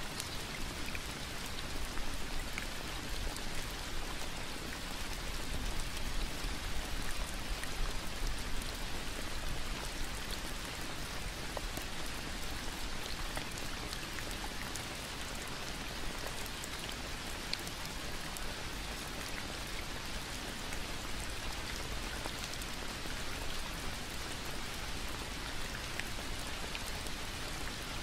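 Steady rain falling, an even hiss with scattered individual drops ticking.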